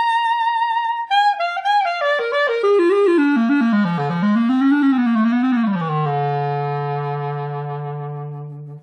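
Music: a single wind instrument holds a high note, then runs down in quick steps, wavering up and down partway, and settles on a long held low note that cuts off suddenly near the end.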